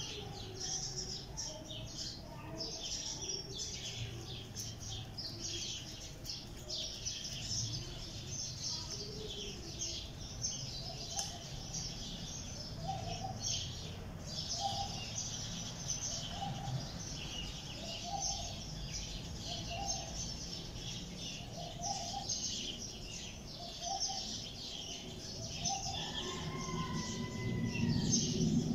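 Many small birds chirping at once in a dense, steady chatter, with a lower call repeating about once a second through the middle.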